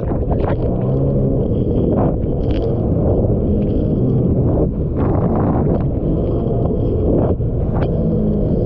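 Heavy wind noise buffeting the microphone over the steady hum of a Sea-Doo personal watercraft's engine, with brief splashes of spray and hull slap as it crosses choppy storm waves.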